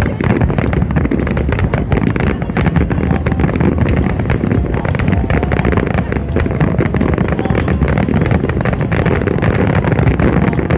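A fireworks display with a continuous barrage of rapid bangs and crackles, and wind buffeting the microphone.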